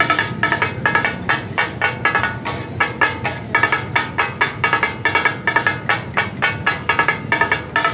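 Two metal spatulas chopping mutton on a large flat griddle (tawa): the fast, rhythmic 'taka-tak' clatter of steel striking the hot plate, about five ringing strikes a second.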